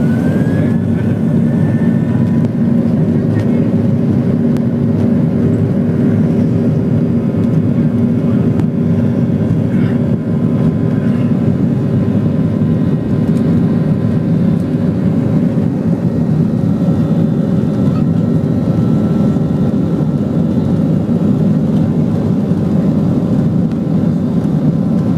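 Boeing 737-700's CFM56 jet engines heard from inside the cabin over the wing: a loud, steady rumble with low humming tones as the airliner moves along the runway at the start of its takeoff.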